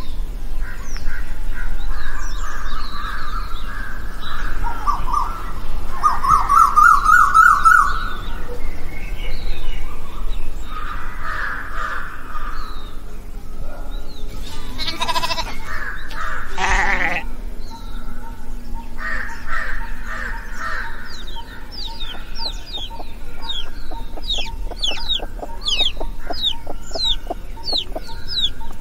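Outdoor birdsong and calls, several birds at once, with fowl-like calls among them. Near the end comes a quick run of high, falling chirps, about two a second.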